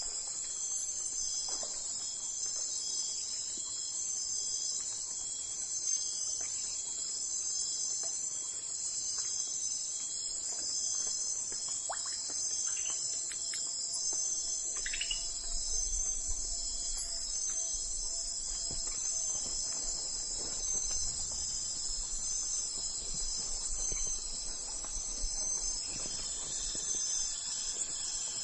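Insect chorus: a steady, high trilling that pulses slightly throughout, with a few faint short chirps in the middle.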